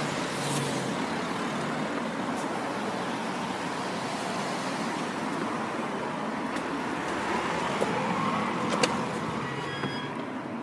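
Steady street traffic noise that fades near the end, with a sharp click about nine seconds in.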